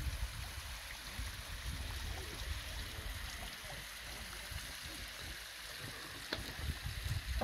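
Wind buffeting the microphone in uneven gusts over a steady outdoor hiss, with a single faint click about six seconds in.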